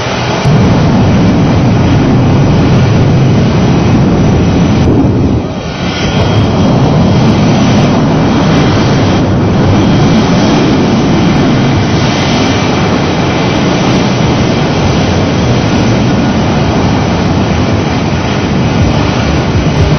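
Loud jet noise of an Air France Concorde's four Olympus 593 turbojets as the aircraft passes close by: a dense, low rumble that dips briefly about five seconds in and then returns at full strength.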